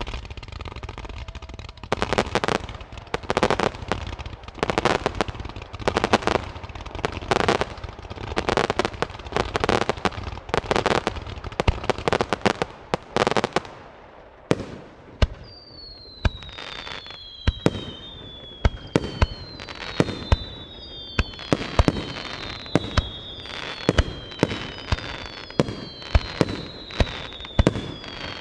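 Fireworks display: a rapid series of loud bursts, about one a second, for the first half, then many sharp bangs and crackles with several overlapping whistles falling in pitch.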